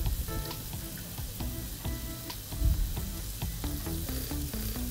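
Marinated chicken thighs sizzling as they sear in a little oil in a nonstick pan, with small clicks of tongs turning the pieces and a louder knock about two and a half seconds in.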